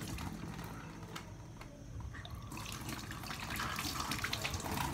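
Kitchen tap running into a sink, with water splashing over hands and food being rinsed under the stream. The splashing thins out briefly about a second and a half in, then picks up again.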